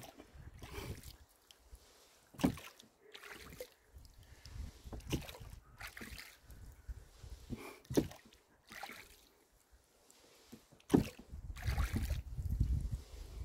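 Rowboat being rowed: sharp knocks of the oars in their oarlocks and dips of the blades every few seconds, with the strongest knocks at about 2.5, 8 and 11 seconds. Wind buffets the lavalier microphone with a low rumble at the start and again near the end.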